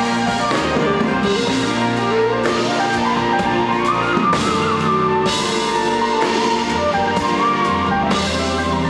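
Live band music: an organ played with a drum kit keeping a steady beat, and a melody line that slides upward over a few seconds in the middle.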